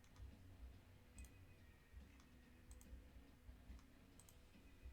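Faint computer mouse clicks: three quick press-and-release clicks about a second and a half apart, running a randomizer one click at a time.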